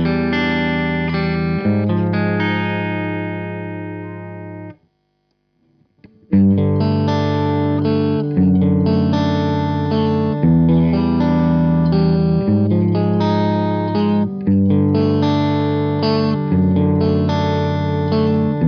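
Electric guitar played through a Suhr Badger 18, an 18-watt EL84 tube amp head, playing chords. One chord rings out and fades, then is cut off about five seconds in. After a pause of about a second, new chords are struck, changing about every two seconds.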